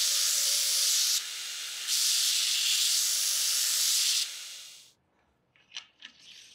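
Belt grinder grinding the end of a steel rod that is spun against the belt by a cordless drill, rounding it over: a steady loud hiss of metal grinding that drops for under a second about a second in, then stops about four seconds in and fades out. A few light metal clicks follow near the end.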